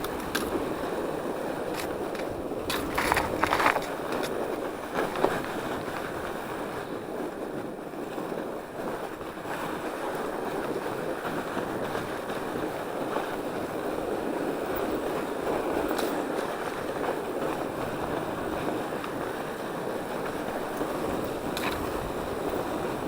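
Norco Bigfoot 1S fat bike riding over packed snow, with a steady rushing noise from the tyres and the air. There are a few sharp clicks and rattles about three and five seconds in.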